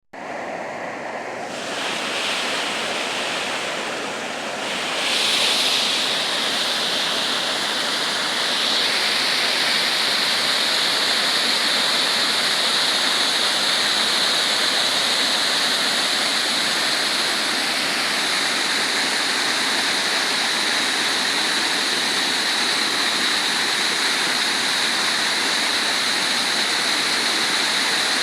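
Waterfall rushing, a steady roar of falling water that grows louder about five seconds in, then holds.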